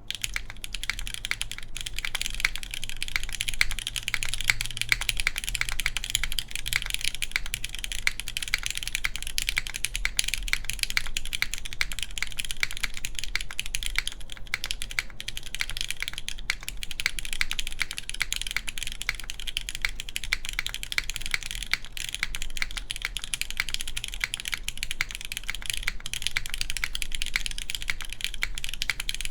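Steady, fast typing on a gasket-mounted Zephyr Z1 mechanical keyboard with lubed Cherry MX Black linear switches, an aluminum plate and GMK keycaps. It makes a dense, continuous stream of key clacks and bottom-outs, a little boomy.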